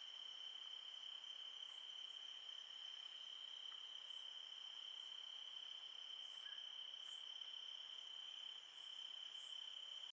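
Insect chorus: a faint, steady, unbroken high trill, with short higher chirps repeating every second or so over it.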